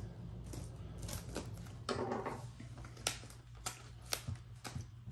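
Hands slitting and handling the plastic shrink-wrap on a cardboard DVD box set: scattered light clicks and ticks, with a short crinkling rustle about two seconds in.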